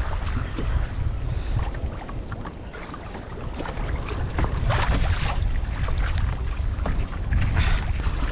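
Wind buffeting the microphone with a low rumble, over water lapping and splashing against a sea kayak, with many small ticks and splashes.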